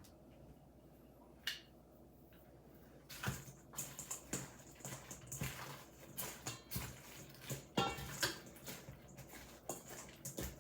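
Cooked chicken wings being tossed and coated in piri piri sauce: irregular wet, sticky clicks and sloshing with light knocks against the dish, starting in earnest about three seconds in after a single click.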